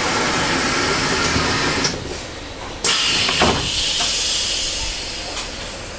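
Compressed-air hissing from a JR East Series E721-500 train standing at a station as its doors are closed before departure. A fresh hiss starts suddenly about three seconds in, with a dull thud just after.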